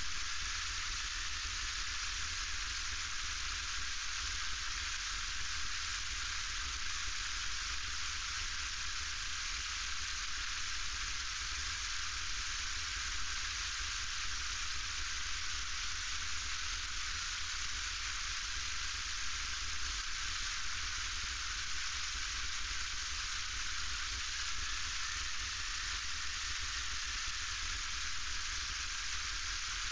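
Steady hissing cabin noise inside a light aircraft's cockpit as it taxis, with a low rumble underneath and no change in level.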